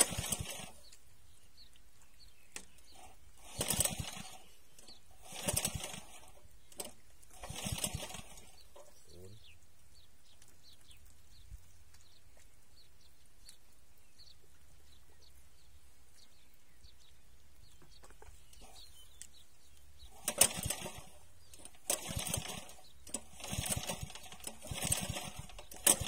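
Short bursts of wet splashing and flapping in shallow muddy pond water: several spaced bursts in the first eight seconds, then a quicker cluster in the last six seconds.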